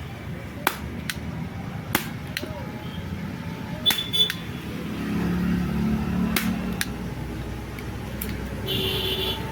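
Workshop sounds of hand tools on motorcycle parts: scattered sharp clicks and metal knocks, about eight in all. A low rumble swells for a couple of seconds in the middle.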